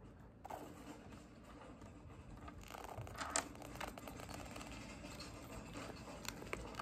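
Faint handling noises: soft plastic rustles and small scrapes as melted chocolate is squeezed from piping pouches into a plastic mould, a little louder about half a second in and around three seconds in.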